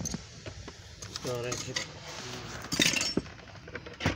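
Sharp metallic clinks and taps of a screwdriver and hand tools against car interior fittings, several in a row with the loudest cluster a little under three seconds in. A voice says a word or two briefly.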